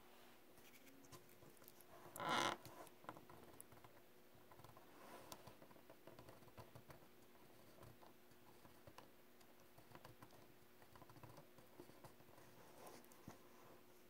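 Faint plastic clicks and light scratching from fingers handling an opened BIC Wite-Out correction tape dispenser and its tape reel, with one louder scraping rattle about two seconds in.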